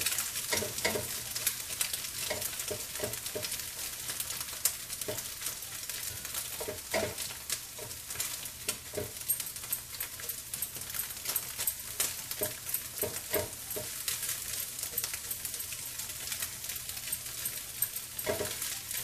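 Eggs sizzling in oil in a nonstick frying pan while a spatula breaks them up, its strokes scraping and tapping against the pan at irregular intervals over a steady hiss.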